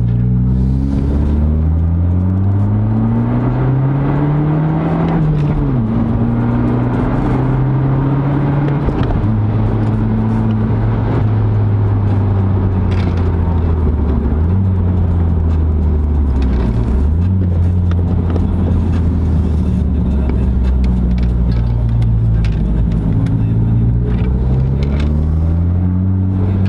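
Straight-piped BMW 1 Series engine and exhaust heard from inside the cabin. It pulls up through a gear with the pitch rising for about five seconds, drops in pitch at a gear change, then holds a steady drone with two brief dips midway and climbs again near the end.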